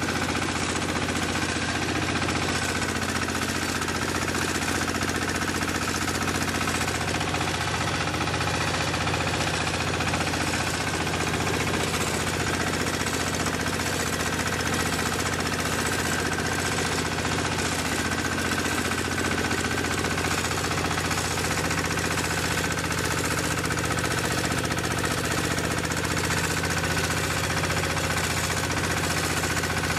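Mini rice milling machine running steadily under load with its drive engine while milling paddy, milled rice pouring from the outlet chute.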